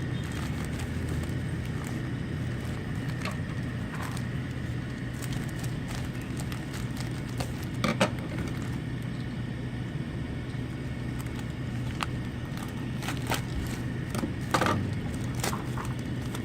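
Packaging being handled: scattered clicks and crackles over a steady low hum.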